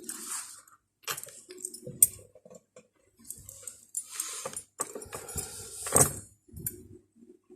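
Irregular rustling and light clinking of small objects being handled, with a sharp click about two seconds in and a louder knock about six seconds in.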